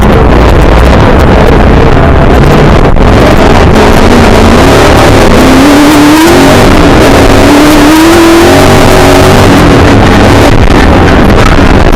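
Milner R5 off-road racing car's 5-litre V8 running hard under load, heard from inside the cabin, very loud and distorted. Its pitch climbs twice in the middle as the revs rise, then falls back.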